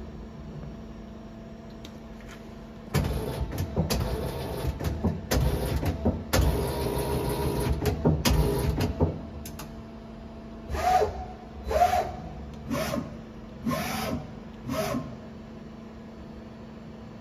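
Takang TNC-10T CNC lathe running over a steady hum: a loud stretch of mechanical running lasting about six seconds, then five short whirring bursts about a second apart.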